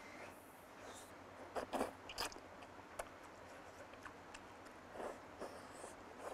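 Close-up eating sounds: biting and chewing soft stewed food. A cluster of louder, sharper bites or clicks comes about two seconds in, and a few more near the end.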